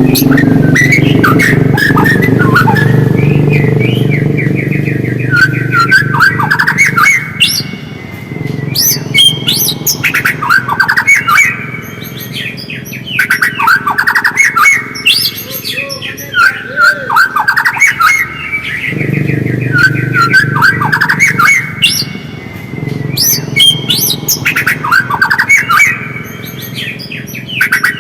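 White-rumped shama (murai batu) calling in fast, chattering bouts of quick repeated notes, each bout a few seconds long and coming back every few seconds. A low steady hum runs underneath at the start and again in the second half.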